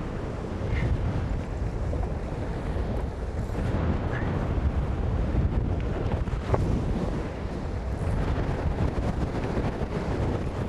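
Strong wind buffeting the microphone in a steady low rumble, over water rushing and splashing past the hulls of a Tornado catamaran sailing fast.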